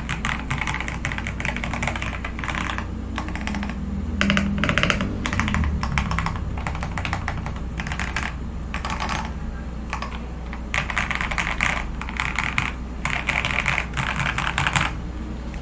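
Computer keyboard being typed on in quick bursts with short pauses, over a steady low hum. The typing stops near the end.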